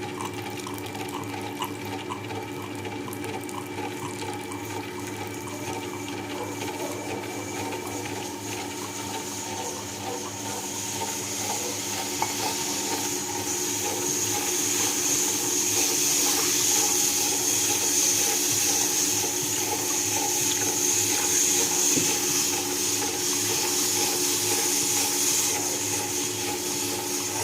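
Electric mixer grinder running continuously while kneading atta dough in its jar: a steady motor hum under a whooshing hiss that grows louder from about ten seconds in.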